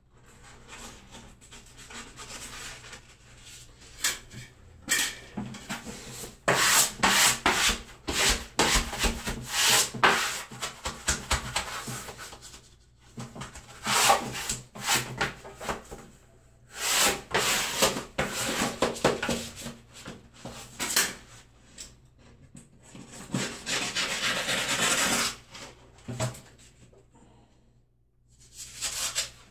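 Freshly hung wallpaper being rubbed flat against the wall with a hand-held pad, a rapid rubbing scrape. It comes in four groups of quick strokes, separated by pauses of a second or two.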